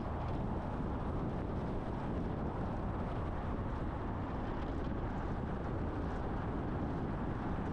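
Steady driving noise of a moving truck: an even low rumble of road and engine with a fainter hiss above it, unchanging throughout.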